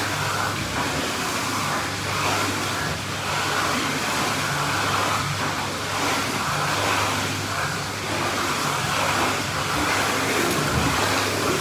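Steady rush of churning pool water with a low hum under it.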